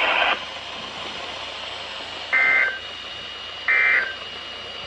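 NOAA Weather Radio SAME end-of-message code: two short bursts of two-tone digital warble about a second and a half apart, over steady radio hiss. They mark the close of the weekly alert test.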